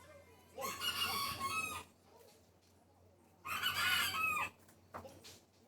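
A rooster crowing twice, each crow lasting a little over a second, with a short fainter call near the end.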